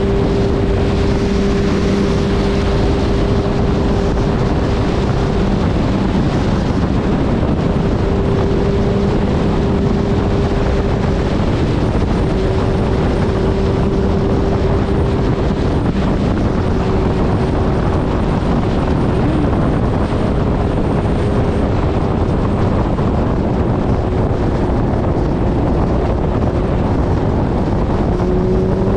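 Suzuki Hayabusa's inline-four engine running at a steady highway cruise under heavy wind rush on the microphone, its pitch rising slightly near the end as it speeds up.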